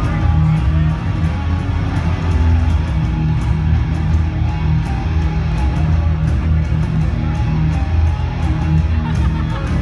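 Loud heavy metal music with distorted electric guitars over a heavy bass low end.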